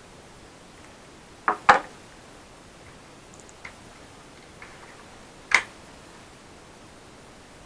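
Sharp clicks and taps of small hard parts being handled during laptop disassembly: a double click about a second and a half in, a few faint ticks, then another loud click, over a steady faint hiss.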